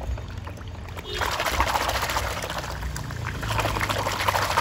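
Water splashing and pouring into a plastic basin of water as toy cars are rinsed by hand, starting about a second in and stopping near the end.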